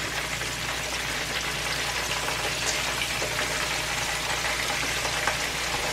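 Chicken wings frying in a skillet of hot oil: a steady sizzle with faint crackles, over a low steady hum.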